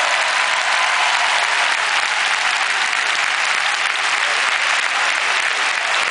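Large basketball-arena crowd applauding, a steady, dense sound of many hands clapping at once.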